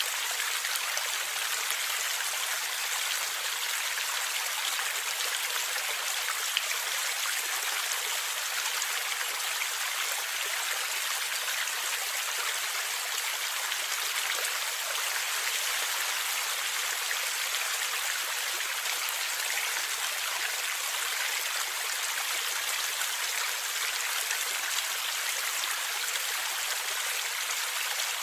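Stream water flowing and gurgling, a steady, even rush with little deep rumble.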